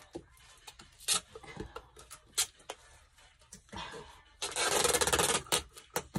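Green packing tape pulled off its roll with a long, finely ratcheting rasp about four and a half seconds in, lasting about a second. Around it come scattered sharp ticks of hands and the tape roll on the box.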